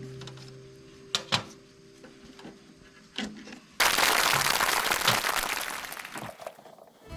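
A few small sharp knocks, then, a little over halfway, a loud steady hiss that starts suddenly and tails off over about three seconds.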